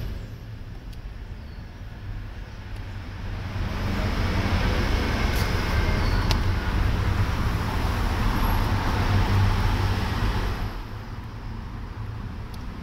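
Road traffic noise: a broad rush that swells about four seconds in and fades away about ten and a half seconds in, over a steady low rumble.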